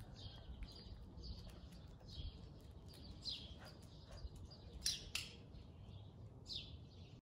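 Small birds chirping repeatedly over a steady low background hum. About five seconds in comes a sharp double click from a dog-training clicker, marking the dog's return to the front position.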